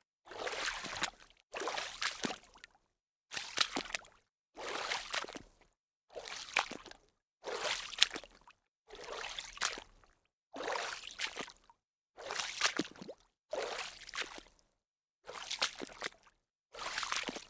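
Water splashing in a series of separate splashes, each about a second long and cut off by a short silence, about a dozen of them evenly spaced.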